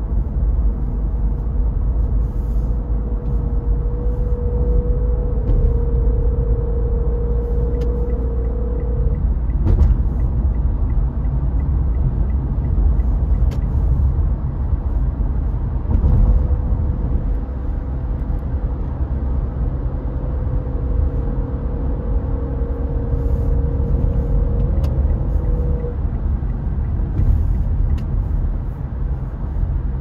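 Car driving, heard from inside the cabin: a steady low rumble of tyres and engine. A steady hum comes in twice for several seconds, and there are a couple of sharp knocks about a third and halfway through.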